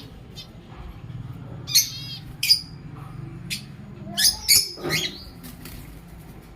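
Pet lovebirds giving short, sharp, high-pitched chirps and squawks in scattered bursts: one about two seconds in, another about half a second later, and a loud cluster around four to five seconds, over a steady low hum.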